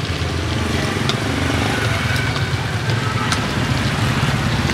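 Motorbike traffic on the street: a steady low engine rumble under a broad hiss.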